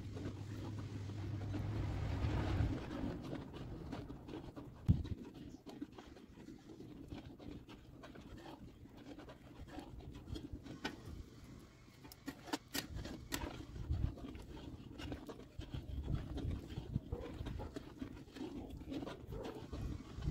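Milk simmering in a large metal kadhai over a wood fire, stirred with a long metal ladle: scattered light clicks and scrapes over a low rumbling background. A steady low hum in the first few seconds stops abruptly.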